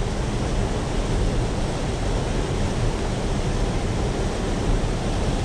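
Steady rush of turbulent water pouring through below a dam.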